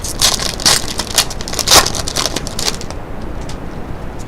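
Crinkling, crackling wrapper of a hockey card pack being torn open and handled. It goes as a dense run of sharp crackles that stops a little under three seconds in, leaving only a few faint clicks.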